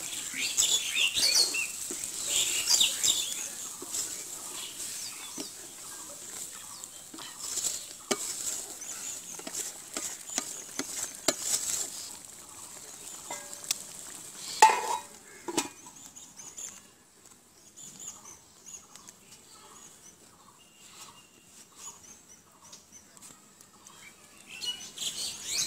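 Wooden spatula stirring and scraping a simmering curry in a large aluminium pot, with scattered knocks against the metal. There is one loud clank about fifteen seconds in, after which it goes quieter, with fowl or birds calling faintly in the background.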